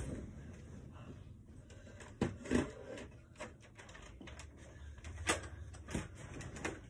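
Scattered knocks and clicks of things being handled and moved about, over a low steady hum; the sharpest knocks come about two seconds in and again about five seconds in.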